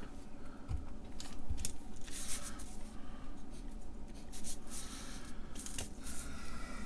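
Pen scratching on paper in short strokes, making marks on a printed checklist. Two soft knocks come in the first two seconds.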